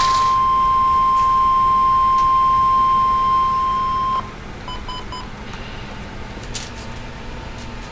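Emergency alert broadcast tone: a loud, steady, high electronic tone held for about four seconds that cuts off suddenly. Three short beeps follow about half a second later, then faint hiss.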